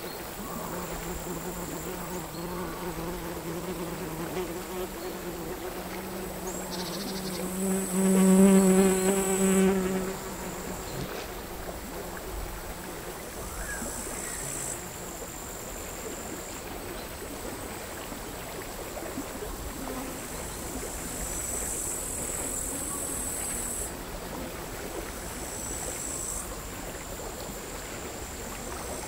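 Crickets singing in a high, continuous trill that swells and fades in patches, over the quiet lapping of sea waves. For the first ten seconds a flying insect buzzes near the microphone, loudest just before it leaves about ten seconds in.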